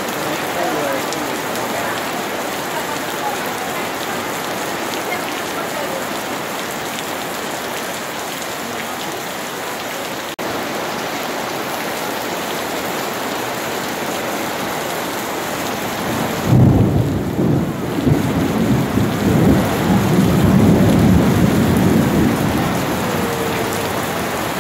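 Steady rain falling, an even hiss. About two-thirds of the way in, a loud low rumble of thunder starts suddenly and rolls on for several seconds before fading back under the rain.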